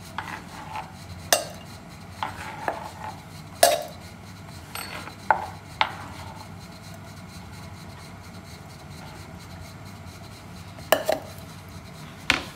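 Kitchen utensils and dishes clinking and knocking as the chopped onion, tomato and chilli for an omelette base are handled. There are a scatter of separate clinks in the first half, a quiet stretch of several seconds, then two more clinks near the end.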